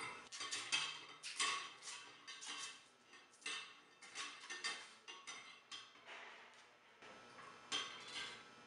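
Irregular run of light clinks and scrapes as a quartz glass sleeve, held in a piece of plastic wrap, is slid slowly down into the metal UV reaction chamber.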